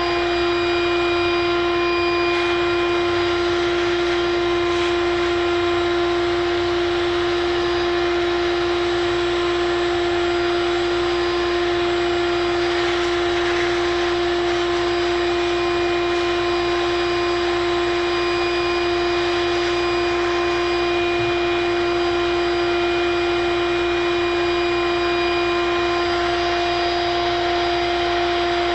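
A machine running steadily: a constant, unchanging pitched hum over a rushing hiss.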